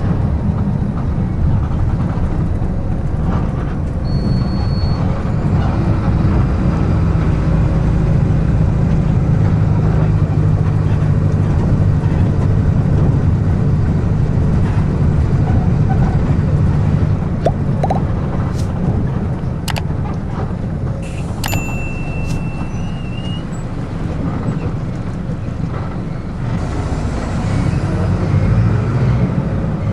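Mercedes-Benz OF-1722M bus's front-mounted six-cylinder turbodiesel engine running while under way, heard from inside the coach as a steady low drone that swells and eases. A brief high beep, a few sharp clicks and a short wavering whistle sound over it.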